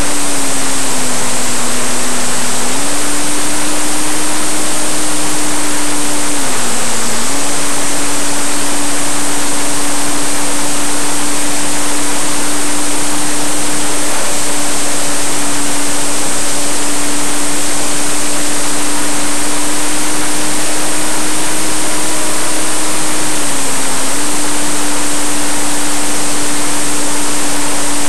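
Onboard sound of a Parkzone electric RC warbird in flight: wind rushing over the camera's microphone, with a steady propeller-and-motor hum underneath. The hum's pitch dips briefly about three times, near the start, about seven seconds in and near the end.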